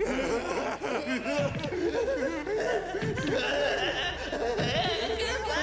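A man's dubbed voice laughing hysterically, the pitch wobbling up and down without words, with a deeper low swell about every second and a half.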